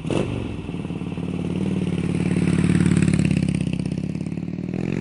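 Motorcycle engine running and revving with a fast, even pulsing beat, swelling to its loudest about three seconds in and then easing back.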